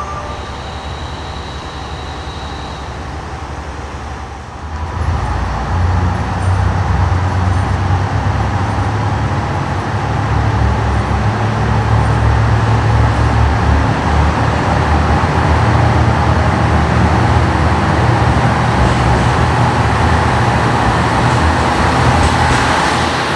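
Diesel express train running into the platform and past close by: a low engine rumble that sets in about five seconds in and grows louder, with wheel clicks over the rail joints near the end.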